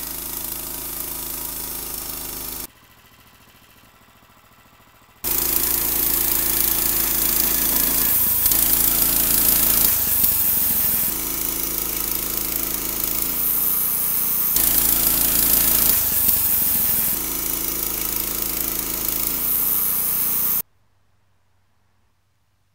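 Band sawmill machinery running loudly, a steady engine-like hum under heavy hiss, heard in several abruptly cut clips, with a quieter stretch early on. It cuts off suddenly to near silence a couple of seconds before the end.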